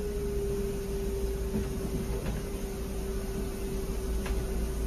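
Cab of a training bus creeping forward on full left steering lock: the engine runs low and steady with a constant whine held on one pitch. A couple of faint ticks come about halfway through and near the end.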